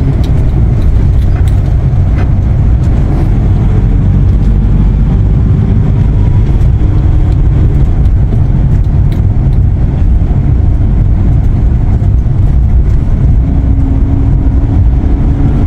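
Steady low rumble of engine and road noise inside a moving passenger van's cabin.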